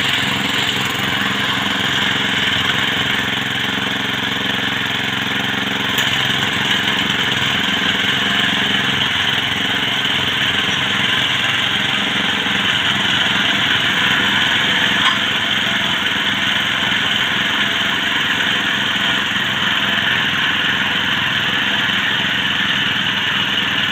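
Mini electric drill running steadily with a continuous motor whine.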